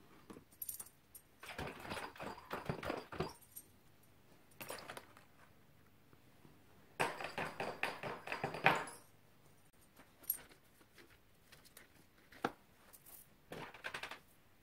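Small metal parts, thin wire and plastic tubs being handled with gloved hands: rapid light clicking and rustling in two spells of a second or two, with a few single clicks between and after.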